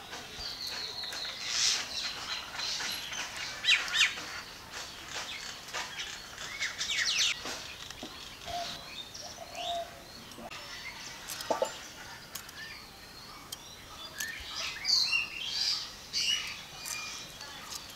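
Birds chirping and calling, many short rising and falling chirps, with short scraping ticks from a boti blade scaling small puti fish.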